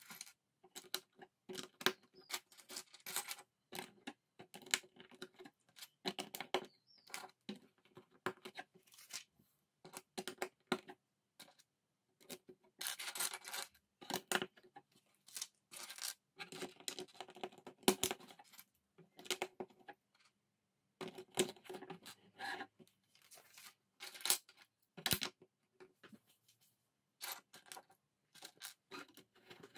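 LEGO bricks being picked from a loose pile and pressed onto a baseplate: irregular plastic clicks and rattles, with a few longer rattling stretches.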